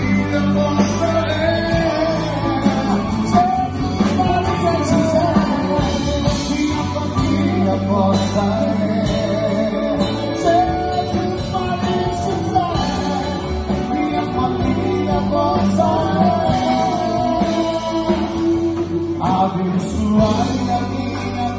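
Live band playing a song: singing over acoustic and electric guitars, keyboard and drums, amplified through PA speakers.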